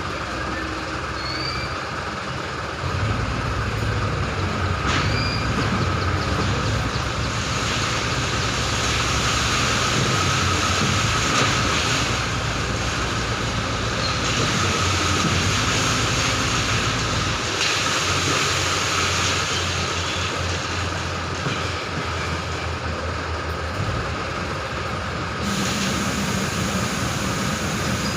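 Diesel engines of a concrete pump truck and a mixer truck running steadily during a concrete pour, with a low hum that gets louder about three seconds in and a steady whine over it.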